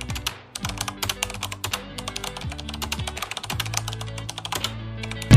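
Background music with a bass beat, with a fast, irregular run of sharp clicks over it.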